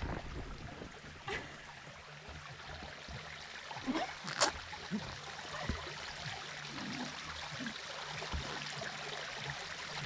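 Stream water running steadily, with a few short clicks over it, the sharpest about four seconds in.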